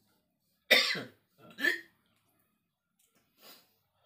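A person coughing: one hard cough about two-thirds of a second in, two shorter ones right after, and a faint one near the end. These are the coughs of someone down with a feverish chill.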